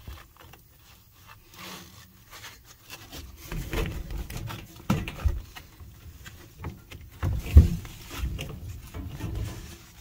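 Irregular knocks, scrapes and rubbing of hands working inside an air handler's sheet-metal cabinet around the evaporator coil and drain pan. The sounds grow busier a few seconds in, and the loudest thump comes about seven and a half seconds in.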